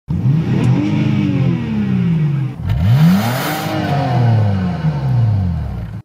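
Car engine revved twice while parked, each rev rising in pitch and falling back toward idle, the second longer than the first.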